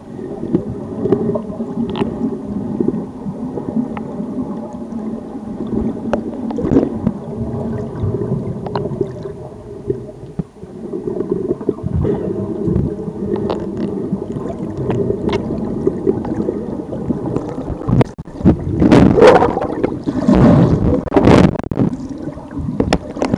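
Muffled water rumble and gurgling picked up by an underwater camera in its housing, with scattered light knocks. Near the end it swells into louder rushing surges as the camera is moved about.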